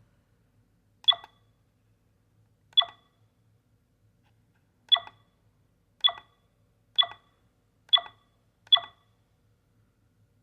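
Digital camera's button-press beeps as its mode and settings menu are stepped through: seven short, identical electronic beeps, two spaced well apart, then five coming about once a second.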